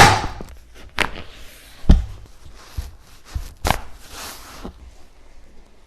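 Chiropractic adjustment: one loud, sudden crack of the spine being adjusted, then several smaller pops and thuds spread over the next few seconds.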